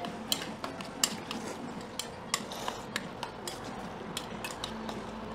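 Metal utensils clicking and scraping against stainless steel bowls as noodles in sauce are stirred and mixed, a string of irregular light clinks.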